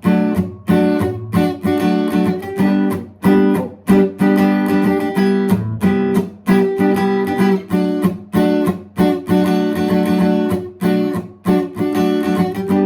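Acoustic guitar strummed in a steady rhythm of sharp, mostly down-strokes, ringing chords changing through a progression.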